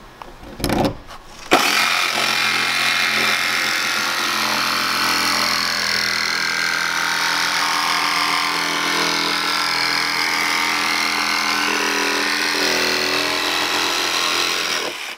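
Cordless jigsaw cutting a straight line through the sheet-steel roof of a Mercedes Sprinter van. After a few short knocks and a brief burst, the saw starts about a second and a half in, runs steadily through the cut, and stops abruptly just before the end.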